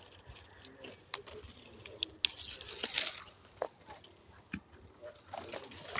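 Apple-tree leaves and twigs rustling as the branches and fruit are handled, with a few sharp clicks and snaps spread through it.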